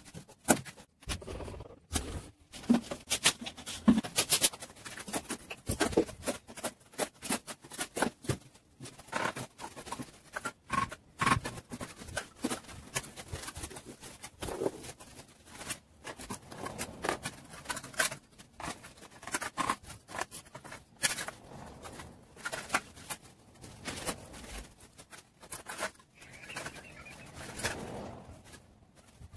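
Irregular sharp taps, knocks and scrapes from masonry work on a fireplace.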